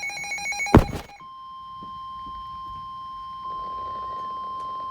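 Emergency Alert System warning: the tail of a buzzy SAME digital header burst, a loud click about a second in, then the steady single-pitch 1050 Hz NOAA Weather Radio warning alarm tone with faint radio hiss beneath it.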